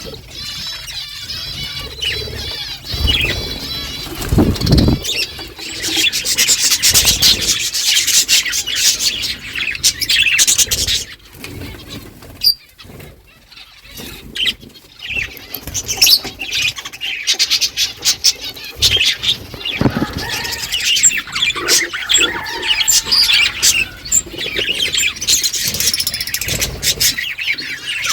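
A flock of budgerigars chattering and chirping all together in a dense, high-pitched warble, with bursts of wing flapping. The chatter thins briefly about halfway through, then builds again.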